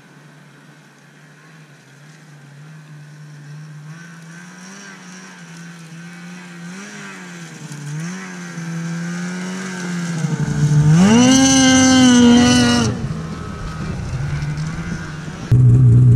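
The 2019 Polaris Switchback Assault 850's two-stroke twin running with an aftermarket exhaust can, growing louder as the sled comes across the field, its pitch wavering with the throttle. It revs up loudly for about two seconds as it comes close, then eases off. Near the end a steady engine idle is suddenly heard up close.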